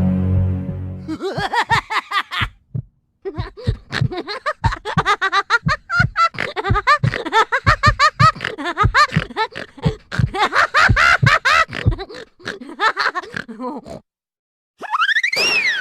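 High-pitched, sped-up cartoon character voices chattering and giggling in gibberish in quick choppy bursts, after a low buzzing tone that stops about a second in. Near the end, a single whistle-like sound effect rises and falls in pitch.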